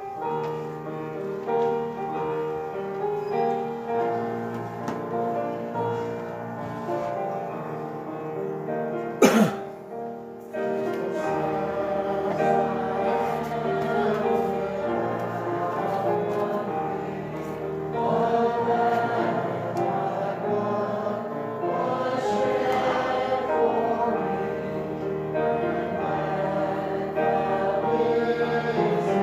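Church congregation singing a slow hymn together, many voices holding long notes. A single sharp knock is heard about nine seconds in.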